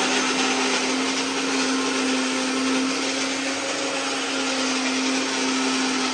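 Electric kitchen mixer grinder running steadily, a constant motor hum with a whirring hiss, as it grinds tomato and masala paste for a curry gravy.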